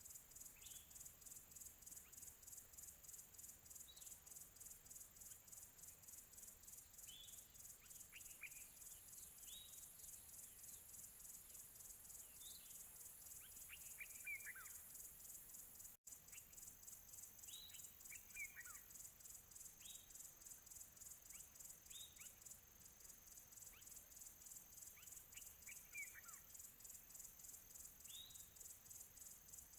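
A faint, steady insect chorus, like crickets, trilling high and pulsing evenly, with short descending bird chirps scattered every second or two. Everything cuts out for an instant about halfway through.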